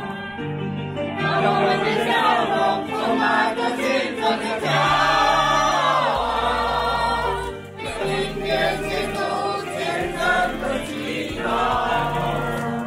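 A crowd singing together in chorus, led by a man singing into a handheld microphone, over amplified backing music with a steady bass line.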